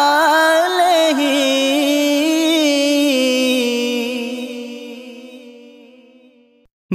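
A sung naat: a single voice holds out the last syllable of a line, stepping down in pitch and slowly fading away over the second half to a brief silence.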